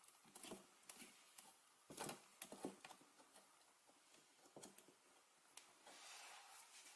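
Near silence with a few faint, scattered taps and rubs from hands handling a felt-tip pen, a metal nut and EVA foam washers on a foam board.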